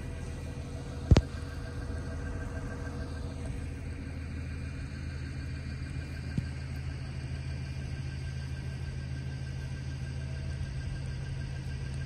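New York City transit bus pulling away, its engine and drive whine fading over the first few seconds over a steady low rumble. A sharp click sounds about a second in, and a smaller one later.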